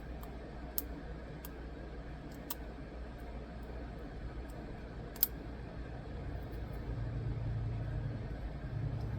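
A few sharp, light clicks from handling a phone and screen protector, the loudest about five seconds in, over a steady low hum that grows louder about seven seconds in.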